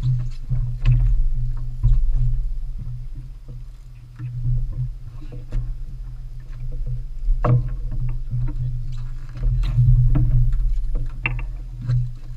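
Small fishing boat at sea: a steady low rumble that swells and fades, with water slapping the hull and scattered knocks and clicks from gear on board.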